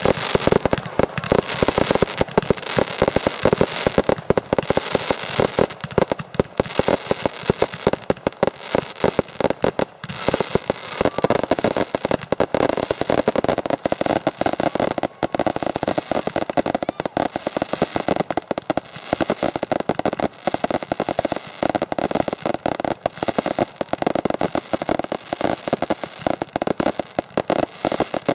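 Aerial fireworks going off in quick succession: a dense, unbroken crackle of many small sharp reports from the bursting shells and their stars.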